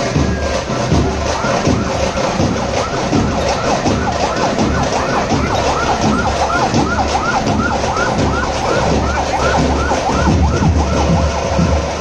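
A fast, siren-like wail that rises and falls about two to three times a second, growing clear a few seconds in, over loud steady drumming and crowd noise.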